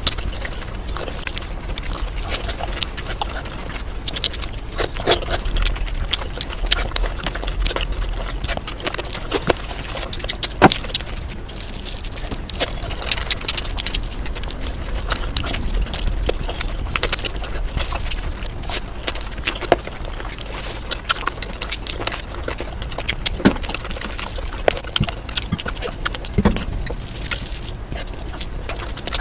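Eating sounds: chewing with many short, sharp clicks and taps scattered throughout, over a low steady hum.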